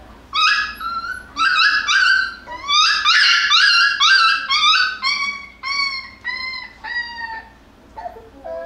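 Jackabee (beagle × Jack Russell) puppy crying in a rapid string of short, high yelping cries, a few a second; the last cries are longer, drop in pitch at the end and grow fainter, dying away about seven seconds in.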